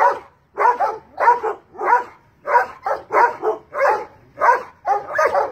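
Large dogs barking repeatedly at a cat up a tree, about two barks a second, with some barks coming in quicker succession partway through.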